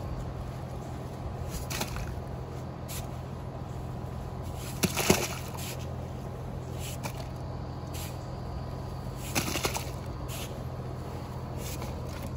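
A spade scraping into and tossing wet, muddy dirt, in a few short, sharp scrapes. The loudest comes about halfway through and another about three-quarters through, over a steady low hum.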